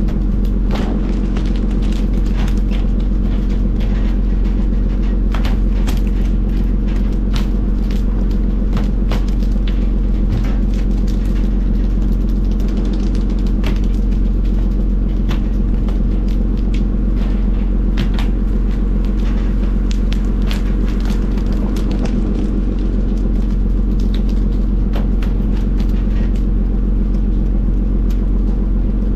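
A fishing boat's engine runs with a steady deep hum. Irregular sharp slaps and knocks are heard throughout as hooked skipjack tuna are flung from the poles onto the wet steel deck.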